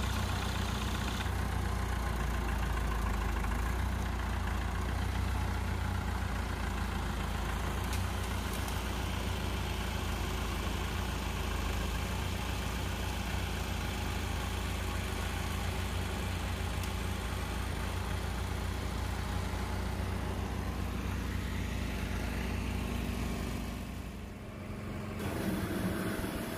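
Farm tractor engine running steadily at low revs while its front-end loader works; near the end the engine sound stops.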